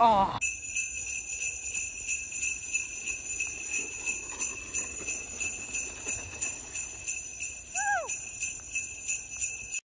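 Sleigh bells jingling in a steady rhythm, about two shakes a second, likely as an added music track. Near the end there is a short falling whistle, and then the jingling cuts off suddenly.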